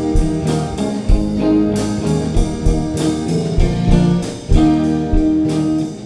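Worship band playing a slow instrumental passage: electric guitar chords held and strummed over a steady drum kit beat.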